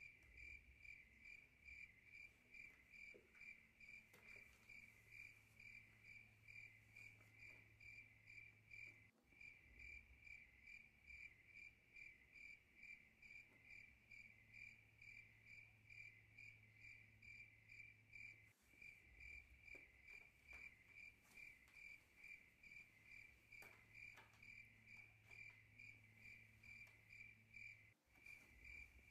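Crickets chirping in a steady rhythm of about three chirps a second, a looped recording that breaks off briefly about every nine seconds.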